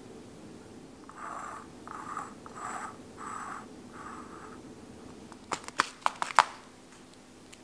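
Five soft, evenly spaced swishes, then near the end a quick run of sharp crackles: a plastic bag of tri-color quinoa being handled.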